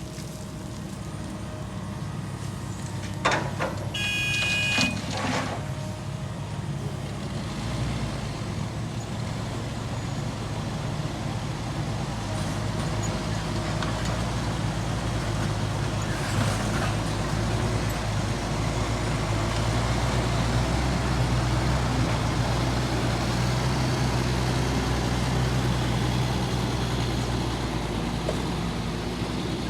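Heavy diesel engine of road-construction machinery running steadily and growing louder through the second half, as if working harder or coming closer. Early on there are a couple of sharp metallic knocks, one with a brief high squeal.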